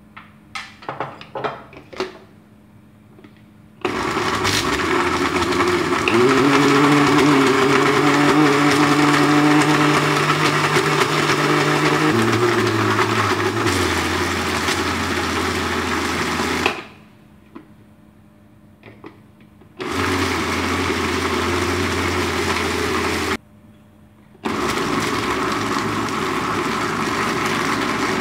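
Countertop electric blender grinding raw pork fat and lean meat in three runs: a long run whose motor pitch steps down partway through, then two shorter runs, each starting and stopping abruptly. A few clicks from the jar and lid being handled come before the first run.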